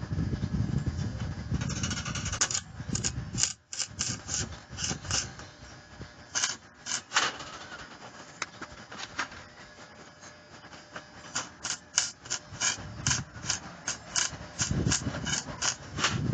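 Short, sharp scraping or ticking strokes on the steel frame, about three a second, coming in bursts, over a low rumble at the start and again near the end.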